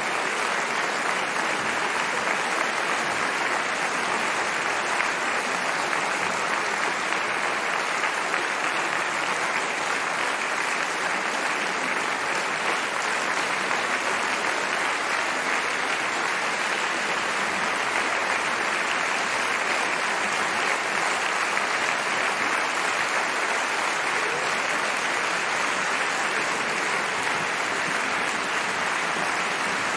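Large theatre audience applauding steadily: a dense, even sound of many hands clapping, with no break or swell.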